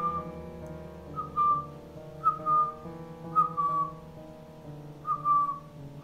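Background music: held chords under a short, slightly falling whistled note that repeats about once a second.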